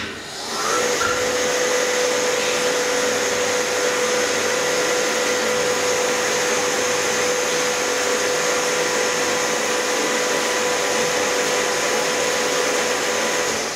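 DEVE hydraulic elevator's pump unit running, a steady whine over a hiss that starts about half a second in and cuts off near the end.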